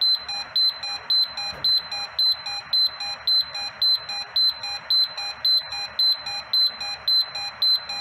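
Gas leak detector sounding its alarm after being triggered by inspection test gas: a high-pitched electronic beep repeating evenly about twice a second, stopping at the end.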